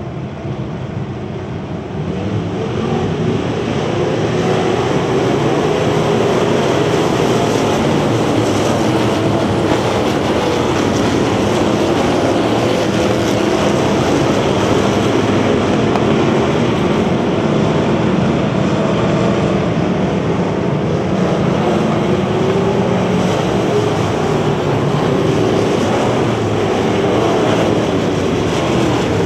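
A pack of bomber-class dirt-track stock cars racing, their engines running hard in a loud, continuous din. The engine note rises and falls as the cars pass, and the sound gets louder about two seconds in.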